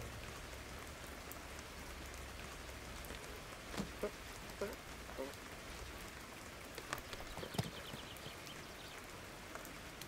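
Steady, fairly faint rain falling on a garden, with a few soft clicks and short squeaky blips from about four seconds in.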